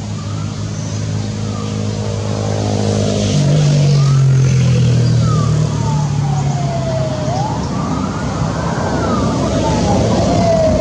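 A motor vehicle's engine running, its pitch stepping up about three seconds in as it grows louder, with a slow wail that rises and falls in pitch over the second half.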